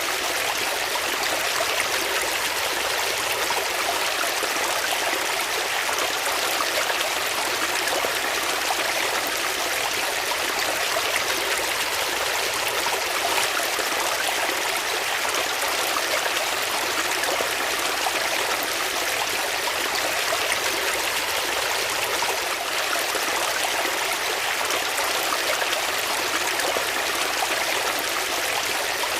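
Flowing water, a steady, even rush of a stream.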